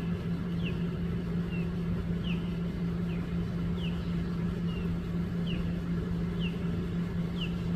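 A steady low hum, like a motor or engine running, with a short high chirp that drops in pitch, repeated about once a second, from an animal.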